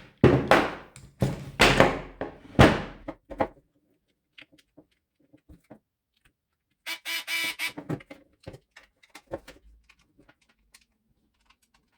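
Plastic housing parts of a Parkside 20 V charger being handled and fitted together: several loud knocks and clatter in the first three and a half seconds, then faint scattered clicks. About seven seconds in there is a short pitched squeak lasting under a second.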